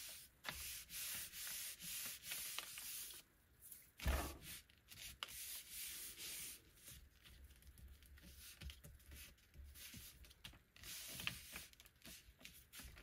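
Palms rubbing the back of a sheet of paper laid on a Gelli gel printing plate, burnishing it to lift the print: a dry papery swishing in repeated strokes, fainter in the second half. A single thump about four seconds in.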